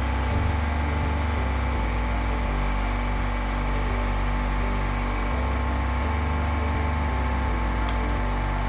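Background music with a steady bass line that changes note every second or two.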